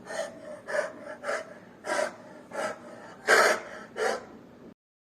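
Grizzly bear huffing: seven short, harsh breaths in a steady series about every half second or so, the sixth the longest and loudest, stopping shortly before the end.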